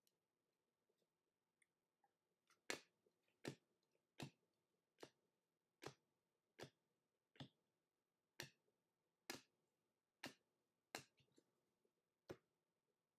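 About a dozen sharp, short clicks at a steady pace, a little under a second apart, starting about three seconds in.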